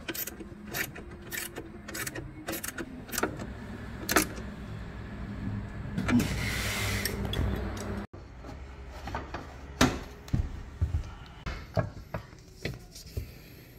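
Ratcheting combination wrench turning a bolt on the steel frame, clicking in quick strokes about two to three times a second, with a longer rasping stretch about six seconds in. After a cut near eight seconds, scattered clicks and knocks of parts being handled.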